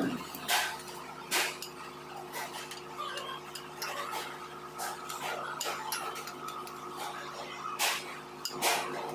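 Irregular metallic clinks and knocks of hand tools and bolts against a truck engine's flywheel, about one every second, over a steady hum.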